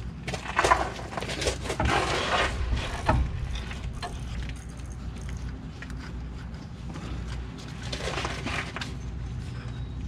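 Rustling and scraping of a truck's tail light wiring harness and its plastic connectors being worked loose by hand, with a sharp click about three seconds in, over a steady low background hum.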